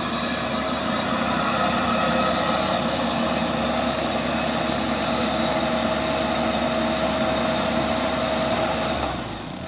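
Yanmar YH850 tracked combine harvester running steadily, its diesel engine hum carrying a steady whine. About nine seconds in, the sound drops noticeably quieter.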